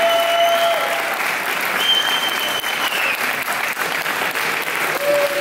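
Crowd applauding steadily, with a few long, steady high tones held over the clapping.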